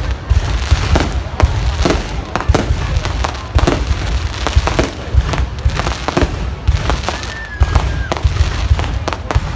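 Aerial fireworks going off: a rapid, irregular string of sharp bangs and pops, several a second.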